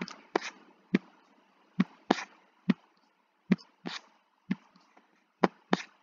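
Computer mouse clicking about a dozen times at an irregular pace, several clicks in quick pairs, while cells and colours are picked.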